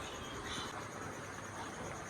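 A steady, high, pulsing insect trill over a constant background hiss.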